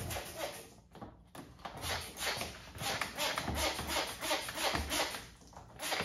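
Quick, repeated rubbing strokes on wet paint protection film laid over a car's rear quarter panel, several strokes a second, with a brief pause about a second in and another near the end.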